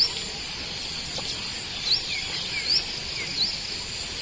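Steady evening insect chorus, like crickets, with a bird giving short, quick chirps about once a second.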